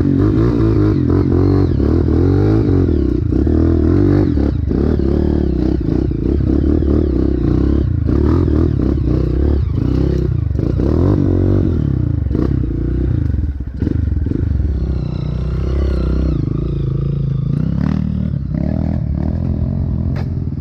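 Dirt bike engine running hard on a steep trail climb, revving up and down. Short knocks and clatter come from the bike jolting over roots and ruts, with a brief drop in engine sound about two-thirds of the way through.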